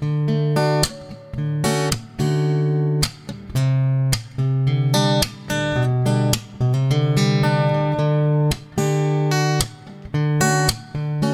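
Acoustic guitar music, plucked and strummed chords.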